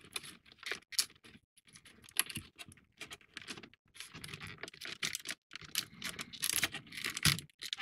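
Fingers working a 3D-puzzle rigging piece into its slots on a model ship: a run of small, irregular clicks, taps and scratches, busier in the second half.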